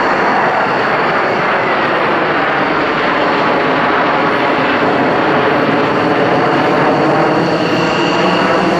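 Loud, steady jet noise from a formation of Mitsubishi F-2 fighters passing overhead, each powered by a single turbofan engine.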